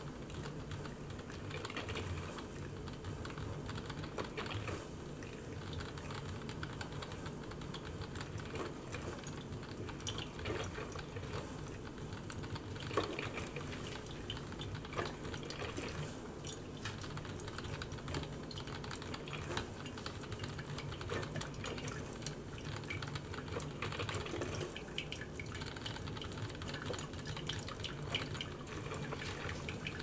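Mainstays 12-cup drip coffee maker brewing: a steady run of small crackles and drips as hot water passes through and coffee collects in the glass carafe.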